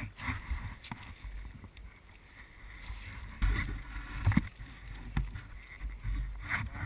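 Footsteps and rustling over dry burnt sticks and scrub, with irregular knocks and a low rumble of wind on the microphone.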